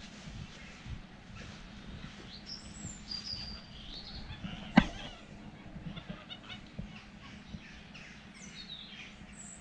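Scattered high-pitched chirps and short falling whistles, with one sharp click about halfway through, over a low steady hum.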